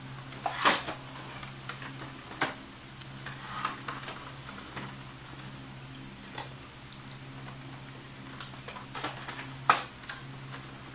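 Plastic parts of a disassembled Epson L360 printer being handled: scattered sharp clicks and knocks of its casing and mechanism, the loudest about a second in and near the end.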